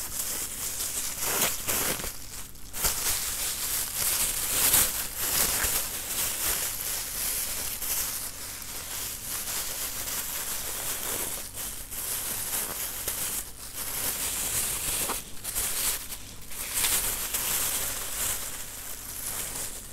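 Clear plastic wrapping crinkling and rustling continuously as a small item is unwrapped by hand, with irregular louder crackles.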